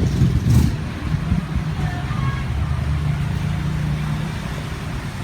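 A motor vehicle's engine running steadily with a low hum, and a few knocks in the first second.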